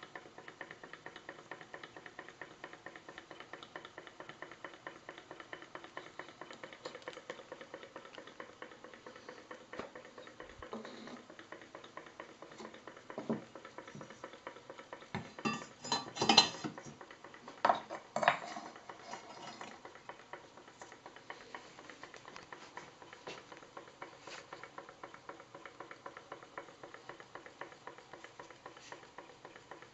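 Small model hot air engine running, its moving parts clicking in a rapid, steady rhythm. A few louder metallic knocks and clatters come about halfway through.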